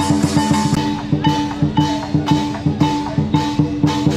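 Drum-led percussion music with a steady beat, about two hits a second, each hit sharp and bright like a drum stroke with a cymbal clash, over held pitched notes.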